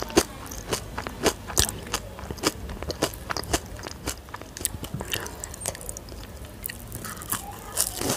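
Mouth chewing and crunching pani puri, the crisp puri shell cracking in many irregular sharp clicks.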